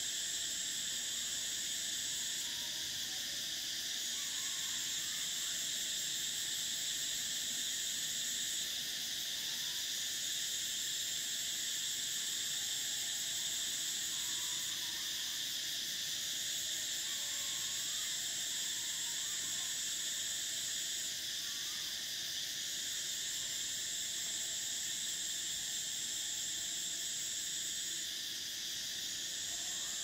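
Cicadas in chorus: a continuous high buzz, with a higher, shriller trill that runs in phrases of about five seconds and breaks off briefly about every six seconds. A few faint short calls sound underneath.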